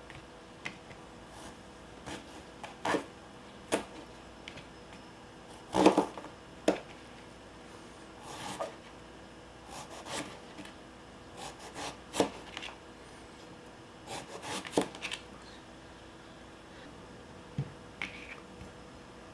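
Kitchen preparation sounds: irregular light knocks, taps and short scrapes of utensils and ingredients on a work surface, the loudest knock about six seconds in.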